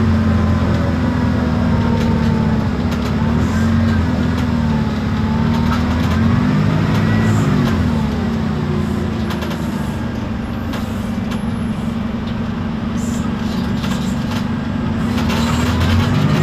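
Inside an Isobus City 1200 city bus under way: its MAN D0836 diesel engine runs while the ZF Ecomat automatic gearbox and differential whine, the whine rising and falling in pitch with road speed. The sound eases for a few seconds in the middle and builds again near the end, with light rattles from the bus body.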